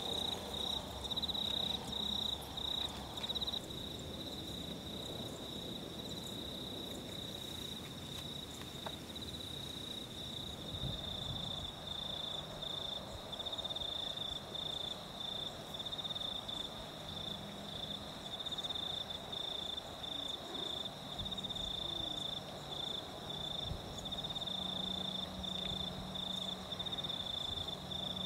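Crickets chirping in a steady, high, finely pulsing trill.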